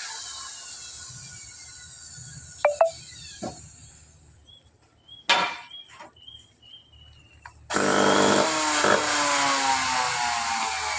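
A handheld electric power tool winds down in pitch, followed by a few sharp knocks and clicks of handling. About eight seconds in it starts again abruptly and runs loudly, its pitch slowly sagging as it works into the wood.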